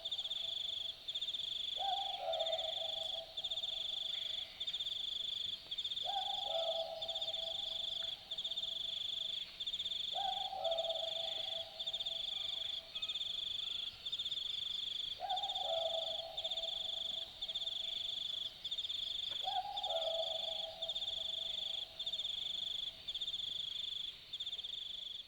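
Australian Boobook owl giving its typical two-note 'boo-book' call, a higher note then a slightly lower one, about five times at intervals of roughly four seconds. Behind it, and louder, an insect chirps in a steady high-pitched pulsing trill.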